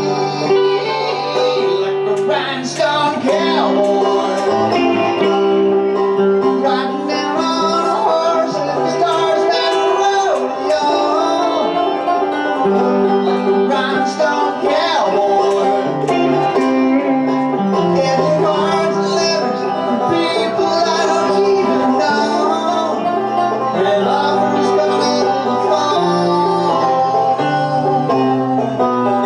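Live bluegrass music from a banjo and electric guitar duo, both picking continuously.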